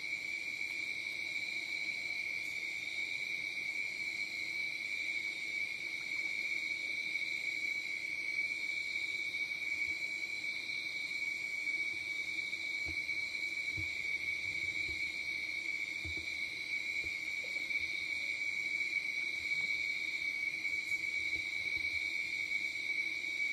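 Night insect chorus: a steady, unbroken high trill of crickets, with a fainter low steady tone beneath. A few faint low knocks come about halfway through.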